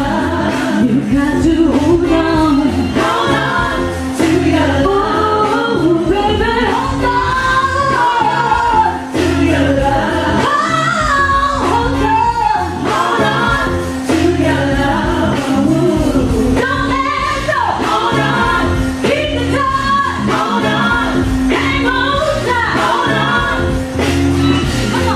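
A woman singing lead, live, over a DJ's backing track with a steady bass beat.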